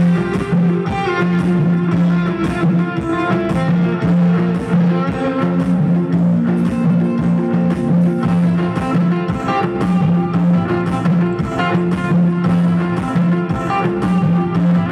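Amplified Bodo dance music with a steady, even beat and a sustained low note beneath the melody.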